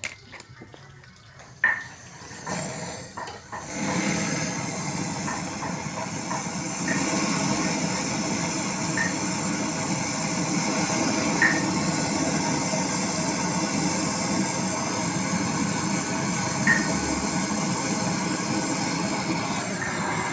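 Brazing torch flame hissing steadily while a fridge condenser pipe joint is brazed. It starts about four seconds in and cuts off suddenly at the end, with a few light metallic clinks.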